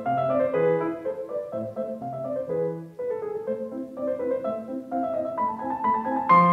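Background piano music: a steady flow of single notes and chords, with a louder chord struck near the end.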